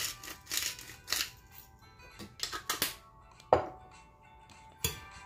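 Pepper mill grinding black pepper in several short gritty turns over the first second or so, then a single sharp clink about three and a half seconds in, over soft background music.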